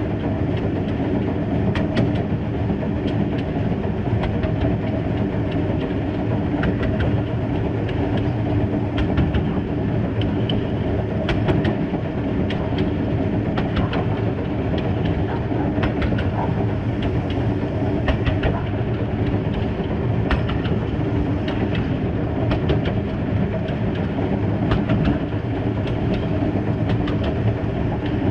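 A small 0-6-0WT well-tank steam locomotive running steadily along 760 mm narrow-gauge track, heard from the front of the engine, with its wheels clicking over the rail joints at irregular intervals.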